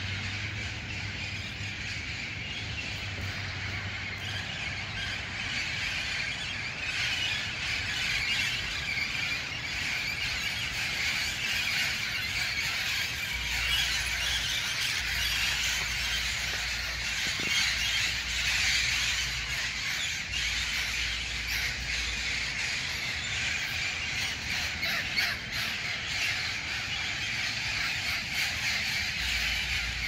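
A large flock of wild parrots calling overhead in a continuous shrill chorus of squawks and screeches, loudest around the middle.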